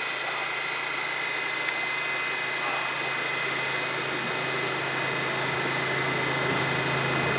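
A New York City subway train standing in the station with its doors open, its equipment running with a steady hum and a thin, even high whine over it.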